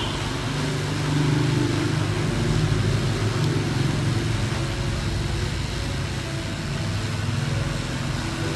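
Hot-air rework station blowing steadily on a circuit board to desolder a power IC: an even airflow hiss over a low motor hum.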